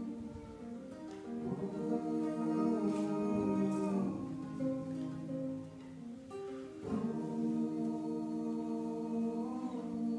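Several voices singing long held notes in close harmony, with a guitar played quietly underneath. The chord shifts every two to three seconds.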